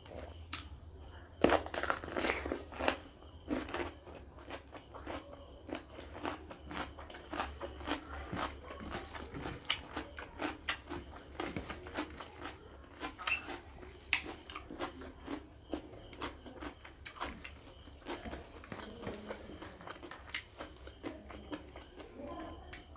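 Close-up eating sounds: crunchy bites into raw cucumber, loudest about one to four seconds in, then many small wet clicks of chewing while fingers mix rice and pork curry on the plate.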